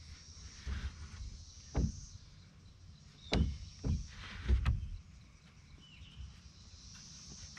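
Dull wooden thuds and knocks as a timber stud wall frame is shifted and bumped into place on a wooden floor deck: a handful of separate knocks, the loudest cluster about three and a half to five seconds in.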